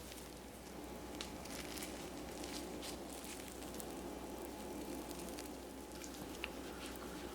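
Faint, soft scraping and smearing of a spatula or scraper working melted chocolate on a marble slab, with a few small ticks over a steady low hum.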